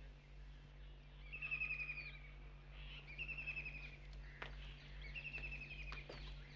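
A bird trilling three times, each a short rapid trill lasting under a second, over a steady low hum. A few faint clicks come in the second half.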